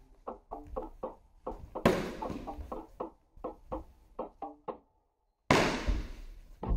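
Rattan eskrima sticks clacking together in stick sparring: a quick series of sharp wooden knocks, with a louder crack about two seconds in that echoes in the hall. A loud burst of noise comes near the end.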